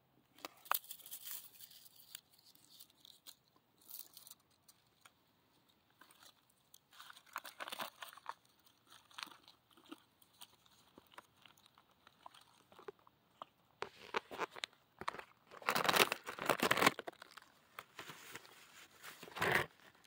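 Plastic bag crinkling and rustling in irregular bursts as it is handled, with scattered crunches; the loudest stretch comes a little past halfway through.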